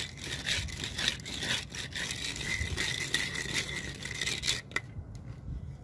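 Wooden hand float rubbing and scraping over fresh concrete in repeated strokes, floating the surface to a coarse finish. The scraping stops about three quarters of the way through.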